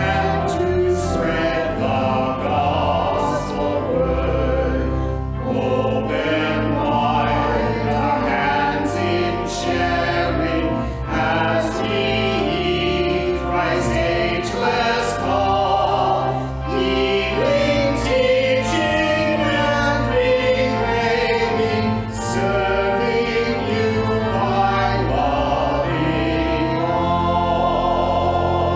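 A choir singing a hymn with instrumental accompaniment, in sustained notes over a steady bass.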